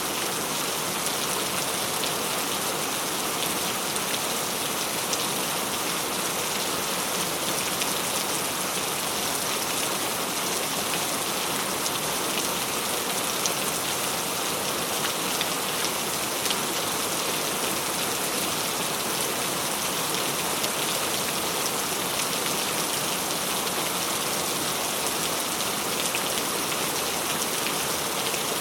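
Steady rain falling, with many small drops ticking on a surface.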